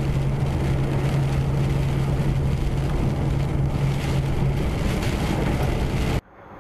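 Vehicle driving on a rain-soaked highway: steady road and tyre noise with a low engine hum. The hum fades about four and a half seconds in, and the sound cuts off abruptly near the end.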